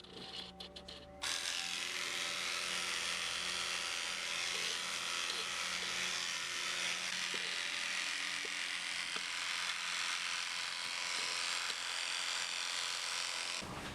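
Electric dog grooming clippers switching on about a second in and running steadily with an even buzz, then switching off just before the end.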